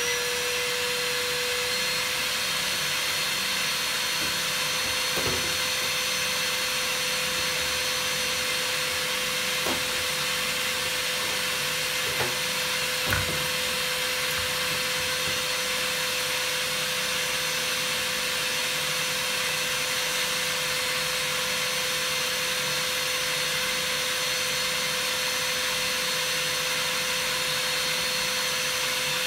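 Shop vac running steadily with a high whine and rushing air, drawing air down through a coffee-cooling tray; its motor has only just spun up and settles to a steady pitch in the first second. A few light knocks sound over it, the loudest about 13 seconds in.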